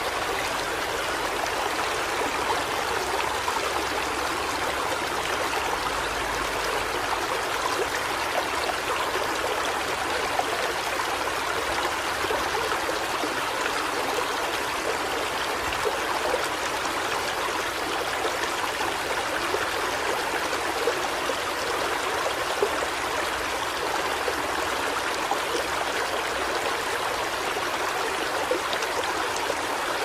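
Rainwater flooding a street, rushing and churning steadily over the pavement and a step after heavy rain.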